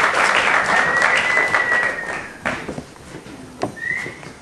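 Audience applause dying away about two seconds in, with a long high whistle over it and a shorter one near the end.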